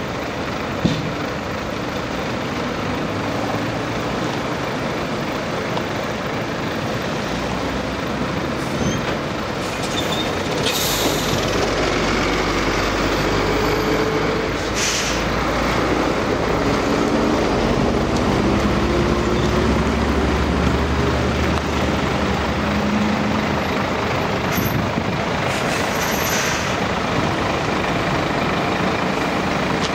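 Heavy diesel engines of a tipper truck and an asphalt paver running together as asphalt is fed into the paver, the drone growing louder from about ten seconds in. A few short sharp air hisses come from the truck, around ten, fifteen and twenty-five seconds in.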